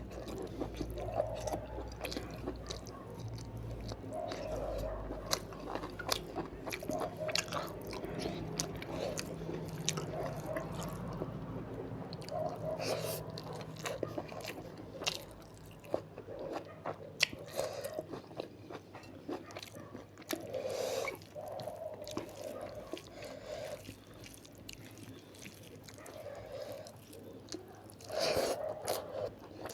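Close-miked chewing of a mouthful of rice and curries: wet mouth sounds and sharp clicks repeating about once a second, with occasional crunches.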